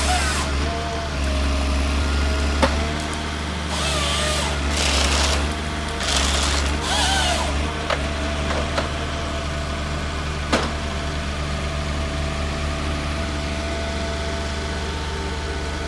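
Heavy machine's engine running steadily, with several bursts of hissing and squealing in the first half and a couple of sharp knocks.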